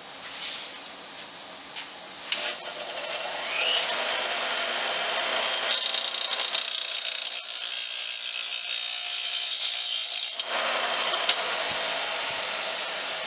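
Bench grinder switched on, its motor spinning up about two seconds in with a short rising whine, then running steadily. The tip of a screw held in locking pliers is ground against the wheel, adding a bright high hiss around six seconds in.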